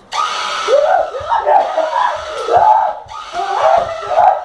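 High-pitched yelling and screaming in short shouted bursts, with no words the recogniser could make out.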